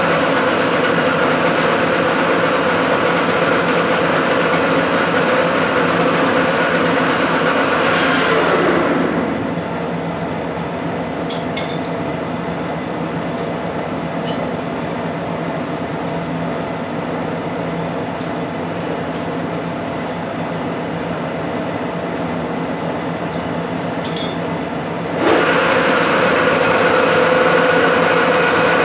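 Metalworking machine tool running steadily, then winding down with a falling whine about a third of the way in, leaving a lower workshop hum with a few metallic clinks; near the end the machine starts up again with a quick rising whine and runs on.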